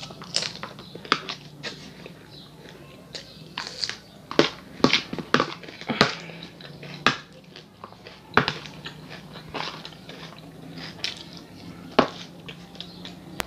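Close-miked eating sounds: a metal spoon scraping and clicking against a plastic plate while rice, beans and lettuce salad are scooped up and chewed. The clicks are irregular, the sharpest about six seconds in and near the end, over a faint steady hum.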